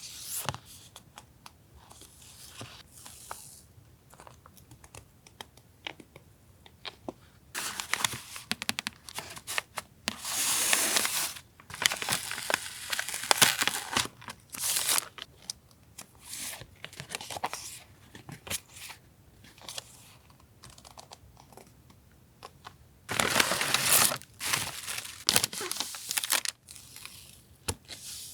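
Paper stationery and packaging being handled: bursts of rustling and crinkling as sheets and wrappers are moved and opened, between light taps and clicks.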